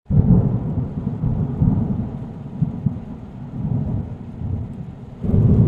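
Deep rolling rumble like thunder, starting abruptly and swelling again about five seconds in.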